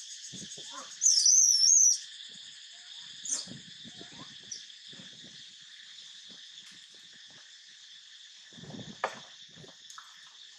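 Steady high-pitched insect chorus. About a second in, a loud, high, wavering call lasts roughly a second. Scattered soft rustles are heard, with a sharper one near the end.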